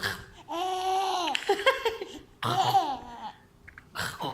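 A baby laughing in short bursts, alternating with long drawn-out voice sounds that rise and fall in pitch.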